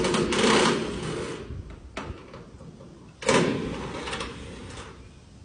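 Sheet metal of a grain silo's door section scraping and rattling in two long rasping bursts: one at the start, one about three seconds in, with a sharp click between them.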